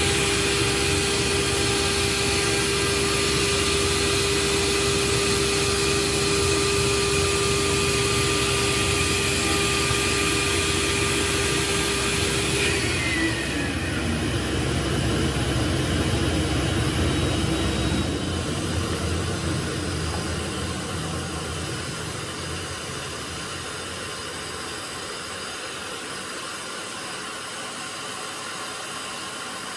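CNC digital cutting table's router spindle running with a steady high whine over a constant rushing machine noise while milling 19 mm Foamex PVC foam board. About halfway through, the spindle winds down with a falling whine. The rushing noise carries on and turns lower and quieter a few seconds later.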